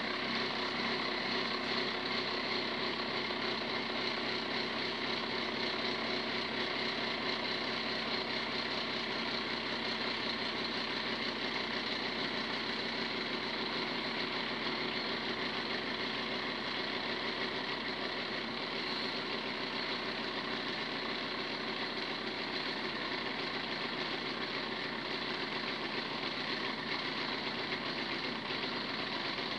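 Small home cotton candy machine running, its electric motor spinning the heated sugar head with a steady hum.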